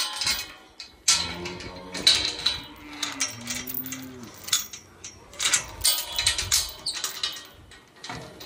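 Cattle mooing twice, one short call about a second in and a longer bending one around the middle, among scattered knocks and rattles.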